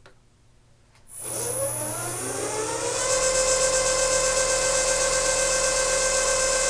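South Bend milling machine's spindle motor, run from a VFD, starting about a second in: a whine that rises in pitch for about two seconds as the spindle spins up, then runs steady at speed.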